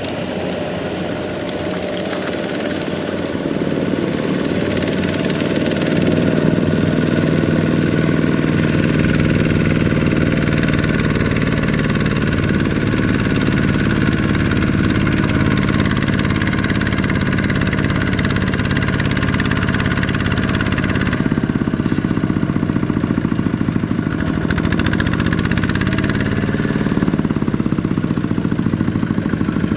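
Single-cylinder diesel engine of a two-wheel walking tractor running under load as it drags a loaded trailer through sticky mud. It grows louder over the first several seconds as it comes close, and its note changes about two-thirds of the way through.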